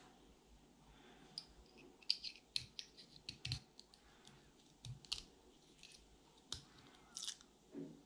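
Hobby knife cutting and prying the purple plastic shrink wrapper off an 18650 lithium-ion cell. Faint, irregular sharp clicks, crackles and scrapes of the plastic, bunched in a flurry a couple of seconds in and then coming singly.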